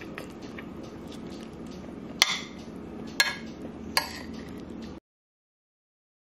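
A metal utensil clinking against a ceramic plate three times, about a second apart, over low room noise. The sound cuts off to silence about five seconds in.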